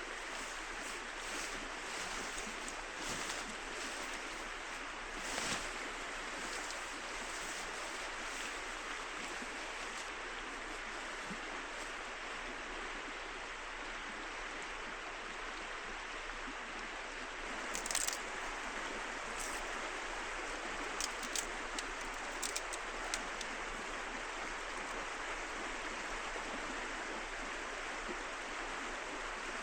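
River water flowing in a steady rush, with a few light clicks and taps about two-thirds of the way through.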